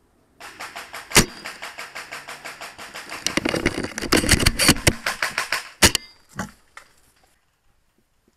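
Airsoft gun firing long full-auto bursts: a rapid, even rattle of shots that starts about half a second in, grows louder about three seconds in and stops about six seconds in. Two louder single cracks stand out, about a second in and just before the rattle stops.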